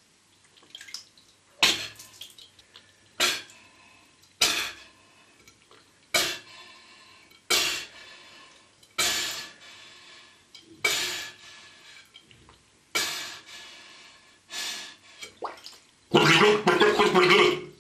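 A person lying under bathwater breathing in sharp gasps through a short tube, about one every second and a half, each fading quickly. Near the end, a louder gurgling burst of about two seconds as air is blown out under the water.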